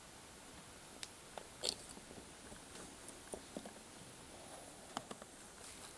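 Faint, scattered small clicks and light taps as a plastic cable clamp, a screwdriver and the new mains cable are handled while the clamp is fitted onto the cable.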